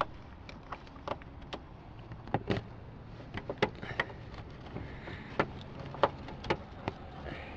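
Irregular sharp plastic clicks and taps, about fifteen of them, as a marker-light bulb socket is worked into its housing behind a car's fender liner, over a faint steady low hum.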